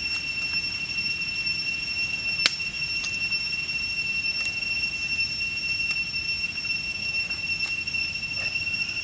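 A steady, high-pitched insect drone runs throughout. Over it come scattered small clicks of a knife shaving a wooden skewer, with one sharper snap about two and a half seconds in.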